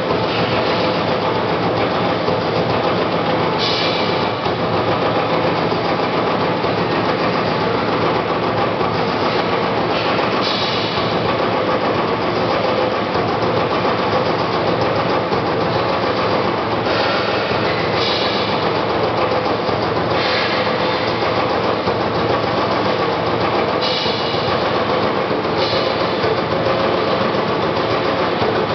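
CNC turret punch press running, its turret punching a rapid series of slots in sheet metal: a fast, steady stream of hits with brief sharper patches every couple of seconds.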